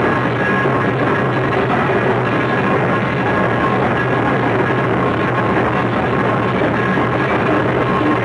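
Live Awa Odori festival music from a passing street troupe, the fast two-beat rhythm of drums, shamisen, kane bells and flutes, playing steadily and loudly without a break.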